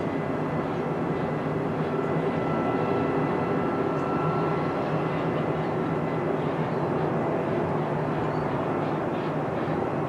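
Boeing 757 airliner on final approach with its landing gear down, its jet engines making a steady rumble with a faint, even whine on top.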